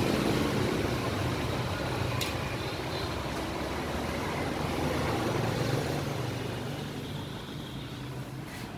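Steady low rumble of motorbike engines, with a single sharp click about two seconds in; the rumble eases off near the end.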